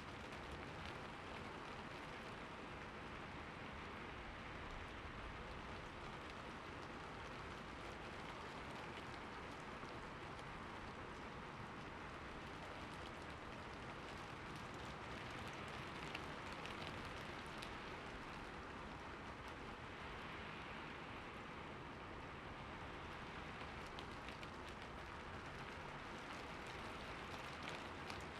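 Light rain falling steadily, a soft even hiss with scattered drop ticks.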